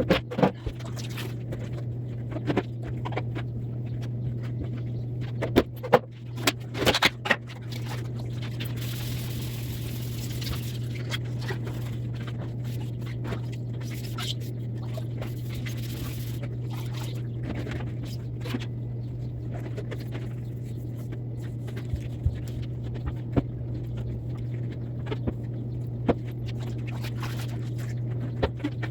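Steady low hum under scattered knocks, clicks and scraping from cleaning work, with a brief cluster of louder clatter about six seconds in and a hiss between about nine and sixteen seconds.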